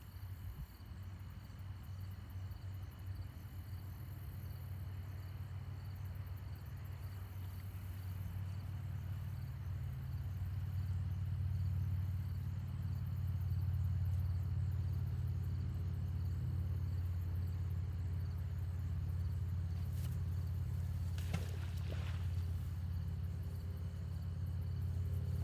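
Steady low engine rumble, like a vehicle running close by, growing louder over the first dozen seconds and then holding steady, with a brief clatter about three-quarters of the way through.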